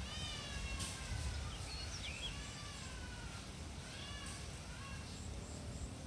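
Animal calls: a long falling call with overtones at the start, more falling calls and short chirps about two seconds in, and brief calls near four and five seconds, over a low steady rumble.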